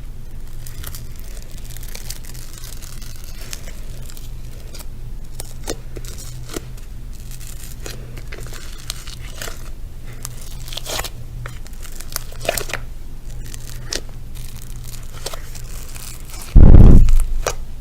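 Close-miked rustling and crinkling with many small scattered crackles over a steady low hum. Near the end comes a loud, low thump lasting about half a second.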